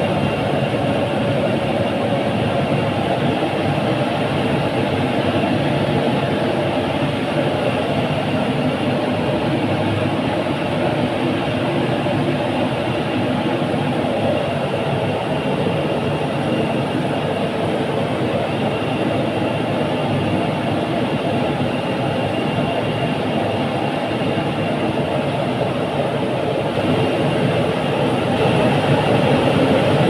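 Burner and blower of an aluminium melting furnace running, a loud, even rushing noise with a faint high whine, growing a little louder near the end.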